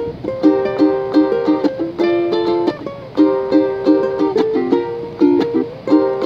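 Two ukuleles playing together: plucked and strummed chords in a steady, repeating rhythm, with no singing.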